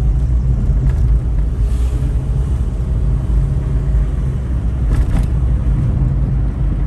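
Car driving on a road, a steady low rumble of engine and tyres, with a short knock about five seconds in.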